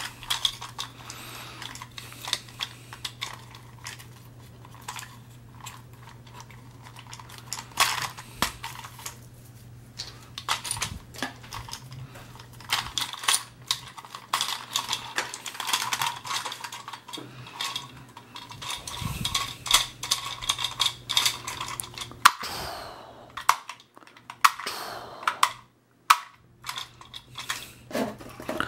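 Plastic Hulk and Iron Man toy figures being handled, with scattered clicks and rattles as the hard plastic pieces knock together, over a steady low hum.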